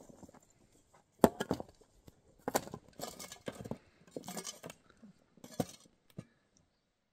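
Metal shovel blades scraping and striking dry, stony dirt, with clinks as they hit stones. There are repeated strokes, and they stop a little over six seconds in.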